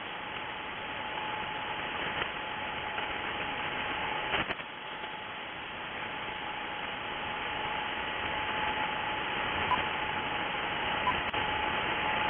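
Shortwave SSB receiver hiss and band static between transmissions, with a steady whistling tone that comes in about a second and a half in and a brief click about four and a half seconds in.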